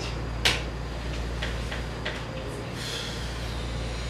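A single sharp impact about half a second in, then a few faint clicks and a soft rustle over a steady low room hum.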